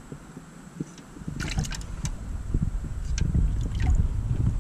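Water splashing in a small glass aquarium as a hand grabs a fish inside it and lifts it out, with a few short sharp splashes and drips starting about a second and a half in.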